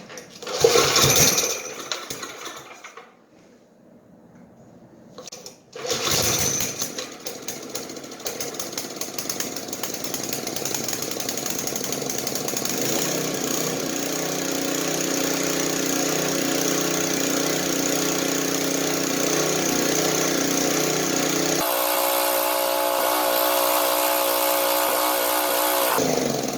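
Coleman portable generator's small engine being started on a newly fitted carburetor: a first try about a second in dies out after a couple of seconds, then a second try about six seconds in catches and the engine keeps running steadily, its tone changing a little near the end.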